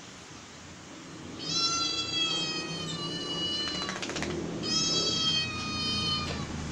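Two long, high cat meows played through a smartphone's speaker: one about a second and a half in and another near five seconds, each lasting well over a second and sinking slightly in pitch. A short run of clicks falls between them.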